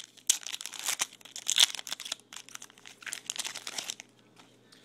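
Foil trading-card pack wrapper crinkling and tearing as a pack of 2011 Topps Chrome baseball cards is opened by hand, in quick irregular bursts that stop about four seconds in.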